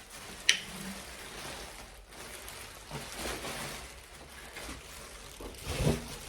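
Packaging being handled and rustled, a steady crinkling hiss with a sharp click about half a second in and a couple of louder rustles near the end.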